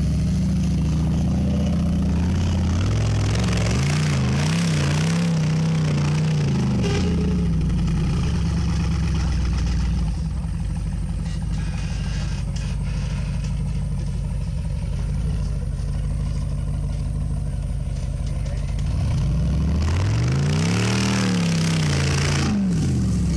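Off-road trial vehicle's engine revving up and down repeatedly, then running lower and steadier for several seconds, with another burst of revs rising and falling near the end.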